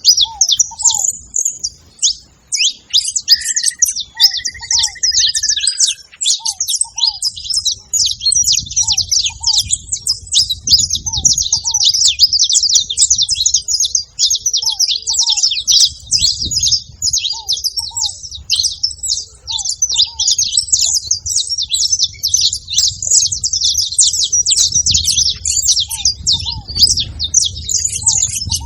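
Saffron finch chirping and singing without a break, a dense run of rapid high, harsh notes. A short, lower call repeats every second or two beneath it, and a brief whistle sounds a few seconds in.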